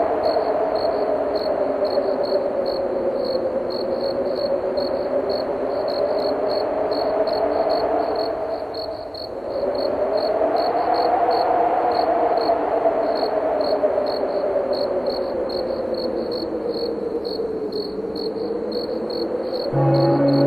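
Crickets chirping in a steady, even rhythm of about two to three chirps a second over wind that moans and slowly rises and falls in pitch, easing briefly near the middle. Just before the end a low church bell strikes and hangs on.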